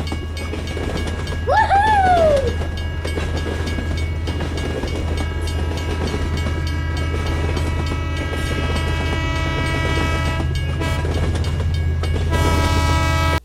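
Train sound effects: a steady low rumble of a train running on the rails, with one short horn call that rises and then falls in pitch about a second and a half in.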